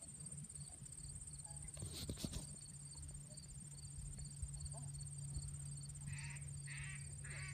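Four quacks from a duck call near the end, about half a second apart, the usual signal that draws the dog's eye before a bird is thrown. Insects buzz steadily throughout, and there is a brief burst of noise about two seconds in.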